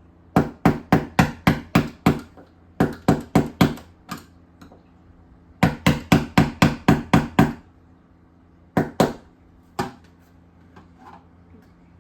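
Hammer tapping a tool set in a notch of a door peephole's rear piece, turning it to tighten it: three quick runs of sharp taps, about four a second, then two taps and a last single one near the end.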